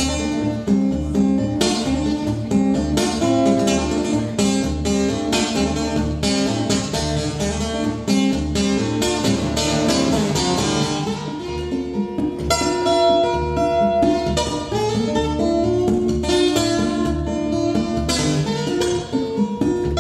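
Solo acoustic guitar playing an instrumental, driving rhythmic strums over a bass line. About twelve seconds in it gives way to slower, ringing held notes, and the strumming returns near the end.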